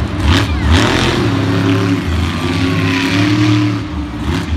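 Monster truck engine revving, its pitch rising and falling over and over.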